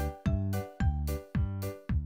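Upbeat children's background music with a steady beat of about two beats a second, each beat a low note struck with a bright percussive hit.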